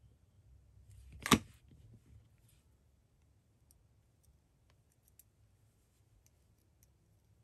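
Acrylic beads clicking together as a bow bead is threaded onto a stack of beads: one sharp click about a second in, then a few faint light ticks.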